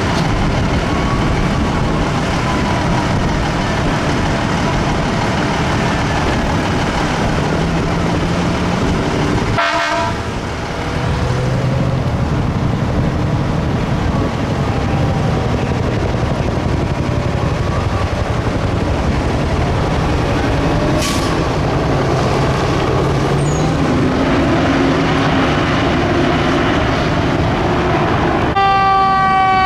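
Heavy traffic and fire engine diesels passing close by, with sirens wailing faintly in the distance. Near the end a fire engine's air horn sounds, a loud, deep blast of several tones that sag slightly in pitch.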